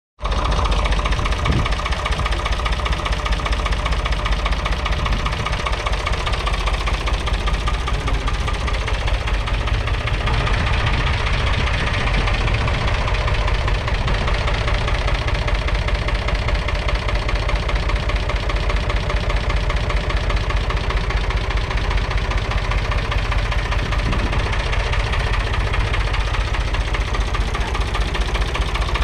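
David Brown 880 Selectamatic tractor's 2.7-litre three-cylinder diesel engine idling steadily.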